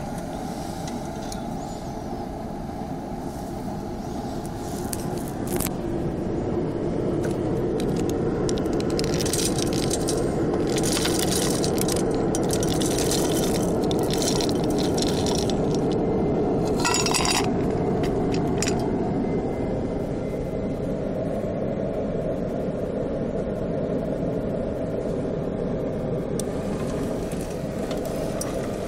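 Homemade pellet burner running steadily with a dense roar from its fan and flame. In the middle, wood pellets are poured into its hopper and clatter and clink for several seconds.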